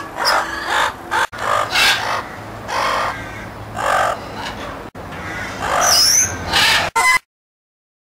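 Birds calling harshly outdoors: a series of loud, rasping caw-like calls, roughly one every half second to a second, with a short high squeak near the end, then the sound cuts off abruptly.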